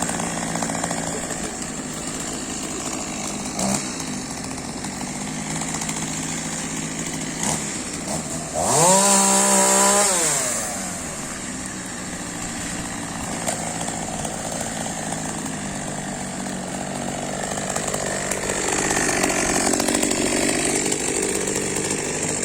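Chainsaw running at idle, revved with a rising whine to full speed about nine seconds in and held for a couple of seconds before dropping back; it runs louder again for a few seconds near the end.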